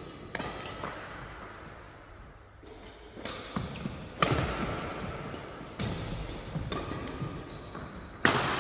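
Badminton rackets hitting a shuttlecock in a fast doubles rally: sharp hits every second or so, the loudest a jump smash about four seconds in and another hard hit near the end. Short shoe squeaks on the court floor come in towards the end.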